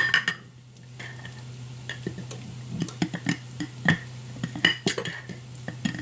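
Metal kitchenware clinking: a scattered series of light taps and clinks from a metal measuring cup and a stainless steel mixing bowl, a few with a short ring, over a steady low hum.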